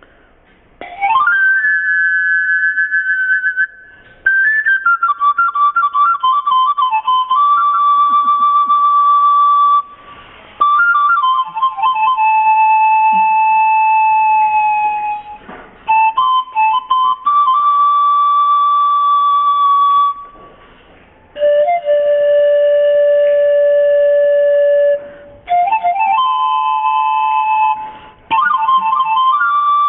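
Solo antara (Andean panpipe) playing a slow melody of long, breathy held notes with a slight vibrato, in phrases broken by short pauses for breath. The first note slides up about a second in.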